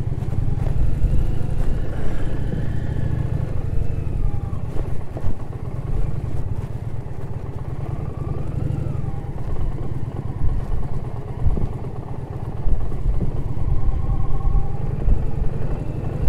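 Indian Challenger V-twin motorcycle engine running as the bike rides along a dirt track, its note rising and falling a little with the throttle.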